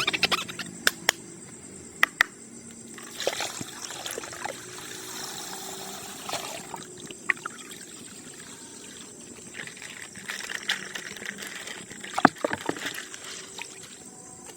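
Coloured water trickling and pouring out of a burst plastic bag, with a few sharp clicks and taps near the start and again near the end.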